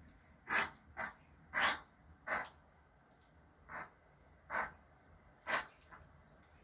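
Pomeranian puppy making about eight short, sharp breaths through the nose, like snorts, at irregular gaps of half a second to a second and a half.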